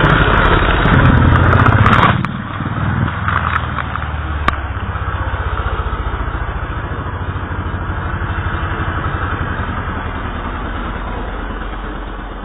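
Speedway bike's 500cc single-cylinder engine running hard, then dropping off suddenly about two seconds in as the bike goes down in a crash. After a single sharp click, a lower, steady engine drone carries on and fades away near the end.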